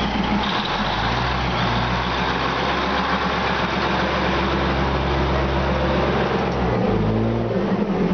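Diesel railcar train rolling slowly past at arm's length, its underfloor engine running with a steady drone over wheel and body noise. The engine note shifts about seven seconds in, as another car's engine comes by.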